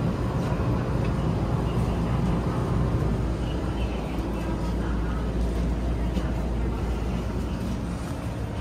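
Steady low rumble of a vehicle running, with indistinct voices in the background.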